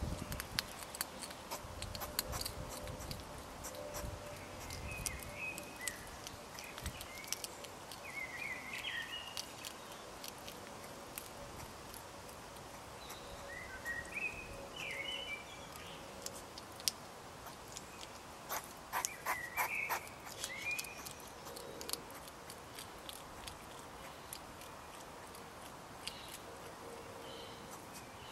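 Hedgehog crunching food from a hand: a run of quick, sharp chewing clicks in irregular clusters, with a dense run about two-thirds of the way through.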